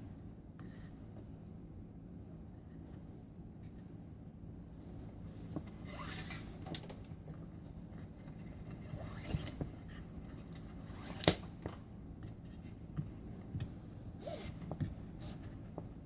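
Faint rustling and scraping of paracord being handled, pulled and cinched into knots, with a few brief louder rustles and a sharp click about eleven seconds in, over a steady low hum.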